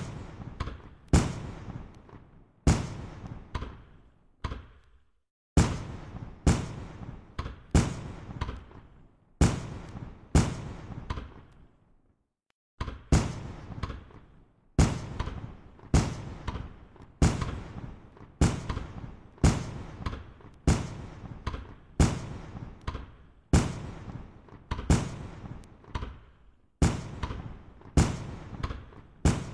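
Fireworks going off in a rapid series, roughly one to two sharp bangs a second, each followed by a fading rumble, with a short pause about twelve seconds in.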